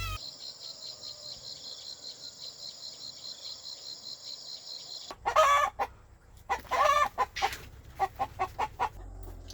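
A steady high, rapidly pulsing buzz, then loud animal calls: two longer calls followed by a quick run of about five short notes.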